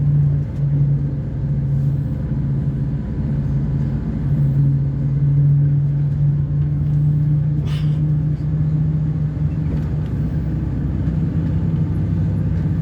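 Diesel engine of a Neobus Thunder microbus on an Agrale MA 10.0 chassis running steadily with a low drone. A short hiss comes about two-thirds of the way through.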